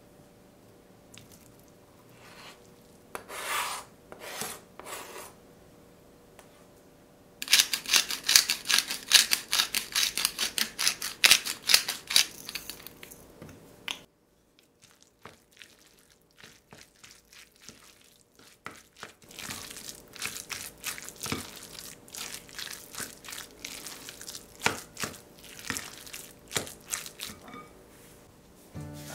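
A spoon mixing egg-mayonnaise filling in a glass bowl, wet scraping and mashing strokes. A loud run of quick repeated strokes comes about 7 seconds in and breaks off suddenly. Softer stirring follows later as chopped egg whites are mixed in.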